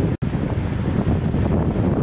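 Big ocean waves washing against a rocky shoreline, a steady rush of surf with wind buffeting the microphone into a low rumble. The sound cuts out for a split second about a fifth of a second in.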